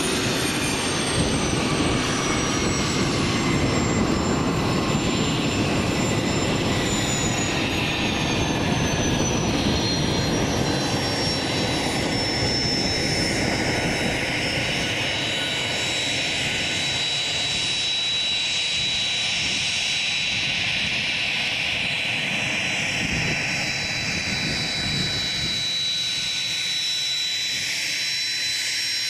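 Gulfstream G550 business jet's twin turbofans running at high thrust: a loud, dense rumble with high whine tones that slide down in pitch over the first dozen seconds and then hold steady. Near the end the low rumble thins out while the whine carries on.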